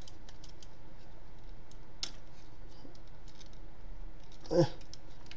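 Light, scattered plastic clicks and ticks from a chrome-painted MP-10 Optimus Prime transforming figure as its chest and shoulder parts are moved by hand, with one sharper click about two seconds in.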